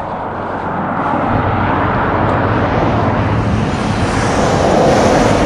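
Road noise of a pickup truck passing on the highway, a steady rush of tyres and engine that builds over a few seconds to its loudest near the end.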